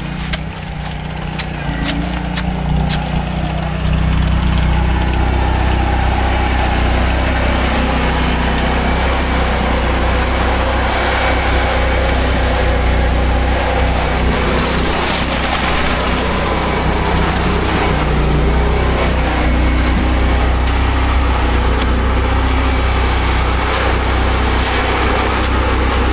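An engine running steadily at an even speed, getting louder about four seconds in, with a few sharp clicks in the first seconds.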